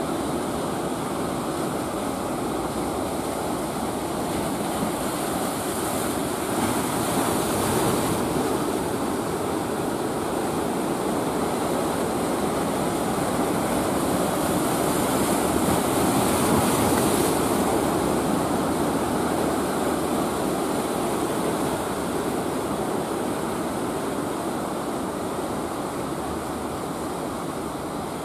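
Ocean surf breaking and washing in, swelling louder twice, about a quarter of the way in and again past the middle. A steady drone of fishing-boat engines runs under it.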